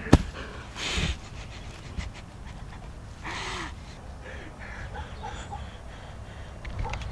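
A man's heavy, ragged breathing: panting breaths, with louder ones about a second in and about three and a half seconds in. A sharp knock sounds just after the start.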